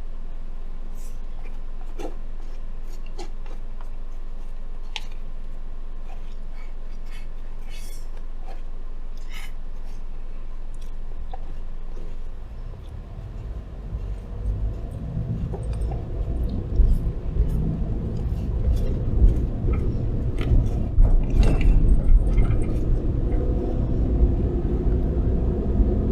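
Inside a car: a steady low hum with scattered small clicks and chewing from eating a bento. About halfway through, the car's low engine and road rumble rises and grows louder as it gets moving.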